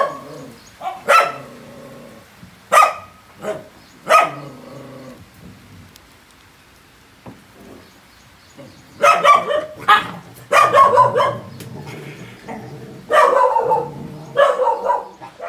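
Dogs barking: single sharp barks about a second apart at first, a quieter spell, then a run of quick barks from about nine seconds in, and more near the end.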